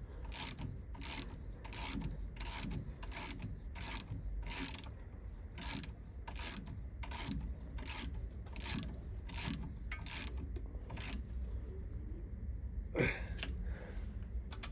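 Ratchet wrench tightening a brake caliper bolt, its pawl clicking in an even run of about two to three clicks a second that stops after about eleven seconds. A single louder metal knock follows near the end.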